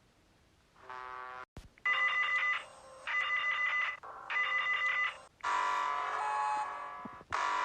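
Emergency alert system alarm tones: a short electronic tone that cuts off suddenly, then three short, harsh beeping bursts in a row, then a long, steady multi-tone alert sound that breaks off briefly near the end.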